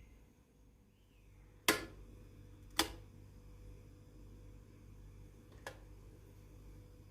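Two sharp knocks about a second apart, then a lighter click a few seconds later, over quiet room background. A faint high chirp that falls in pitch comes about a second in.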